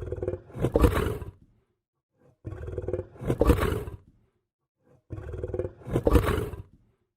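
Lion growling: three deep growls about two and a half seconds apart with silence between, each swelling to a louder peak before breaking off.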